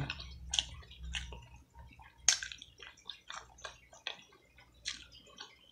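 Close-up wet chewing and lip smacking of a mouthful of sauce-covered fried chicken and boiled egg: an irregular string of short, wet smacks and clicks, several a second.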